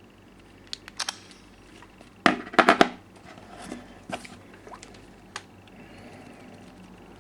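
Handling noise: scattered clicks and knocks, with a louder burst of rattling knocks about two and a half seconds in and single clicks later.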